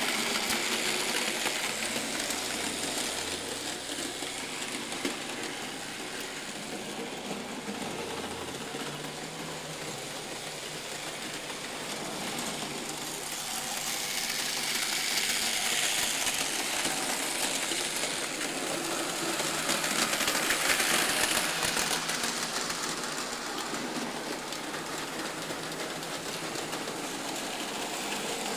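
Märklin model steam locomotive running on the layout's track: a steady whirring motor and rolling wheel noise, swelling and fading a few times as the train passes near and away.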